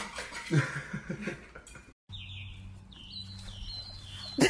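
A puppy's metal food bowl clinking and scraping on a tile floor as it eats. After a sudden cut about two seconds in, birds chirp repeatedly over a low steady hum, and a sudden loud sound comes right at the end.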